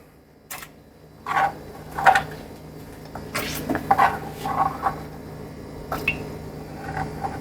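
Chopped vegetables being dropped into a pressure cooker: a dozen or so scattered soft knocks and clatters of pieces landing in the metal pot, over a faint low hum.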